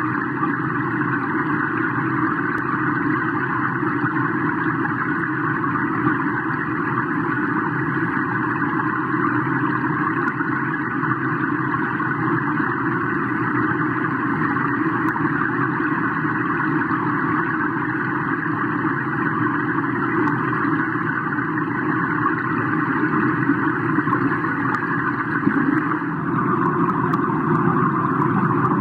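Steady muffled rumble and hiss of a swimming pool heard underwater, with no distinct splashes or clicks, growing a little louder near the end.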